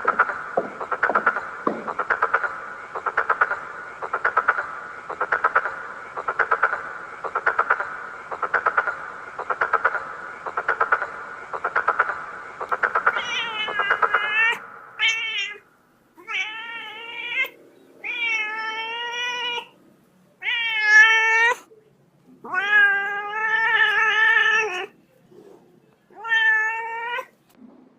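A cat meowing repeatedly in long, drawn-out calls that bend in pitch, about six of them over the second half. Before that, a rasping sound pulses about once a second.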